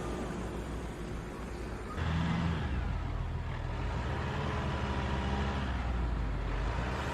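Vehicle engine running with road noise; the sound changes abruptly about two seconds in to a steadier low engine hum.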